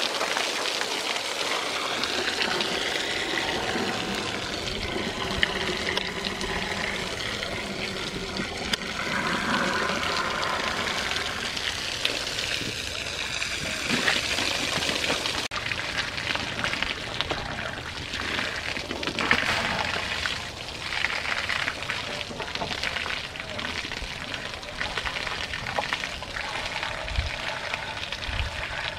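Water from a hose spraying and splashing over an elephant's head and trunk: a steady hiss of spray with splashing.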